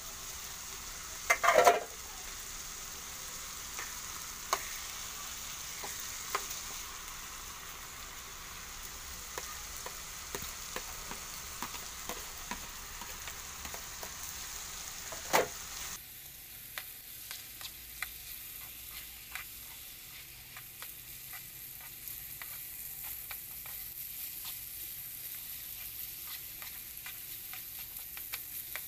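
Ground meat with diced carrots and potatoes sizzling in a frying pan as a spatula stirs and scrapes through it, with many small clicks of the spatula on the pan. Two louder knocks stand out, one near the start and one about halfway through.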